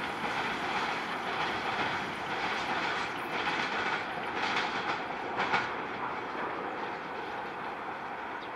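Freight train's open wagons rolling away, their wheels rumbling and clattering over the rails, slowly fading. A few louder clatters about halfway through.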